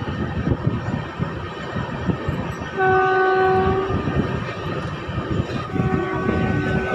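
Indian Railways passenger train running on the rails, a steady rumble with rhythmic wheel clatter. A train horn sounds twice: a loud blast of about a second about three seconds in, and a quieter one near the end.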